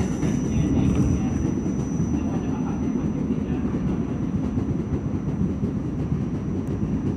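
R46 subway car running at speed, heard from inside the car: a steady low rumble of wheels on rail, with a thin, steady high whine over it.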